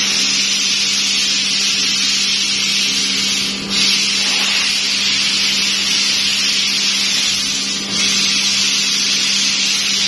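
Laser cutting machine cutting out a speaker grill: a loud, steady hiss over a low steady hum. The hiss breaks off for a moment twice, near four and eight seconds in, and starts again at once.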